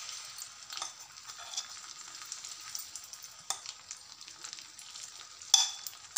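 Besan batter sizzling in hot oil on a tawa as it is poured and spread. A few short clinks and scrapes of a steel spoon against the bowl and pan come through the sizzle, the loudest near the end.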